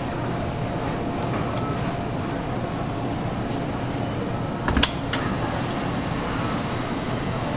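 Steady background hum, broken about five seconds in by a short, sharp metallic clatter as the KitchenAid tilt-head stand mixer, its wire whisk and stainless steel bowl are handled.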